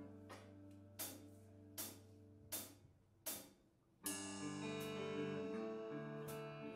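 A held low note fades out, then four evenly spaced sharp clicks, a drummer's stick count-in, lead into the opening of a slow rock-band ballad: guitar chords ringing out with keyboard from about four seconds in.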